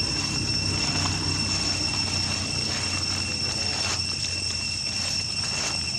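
Insects droning steadily in two high unbroken tones, over a low steady rumble.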